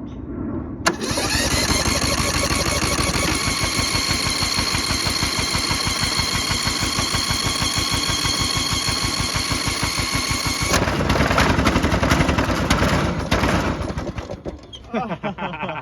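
Riding lawnmower's electric starter cranking the engine: a steady whine over rapid, even chugging for about ten seconds. The whine then stops and a louder, rougher noise runs for about three seconds before fading, and the engine does not start.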